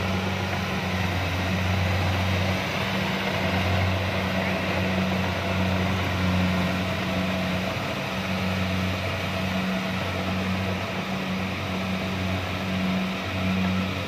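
Kubota DC-70 rice combine harvester's diesel engine running, a steady low drone whose strength swells and fades every second or so.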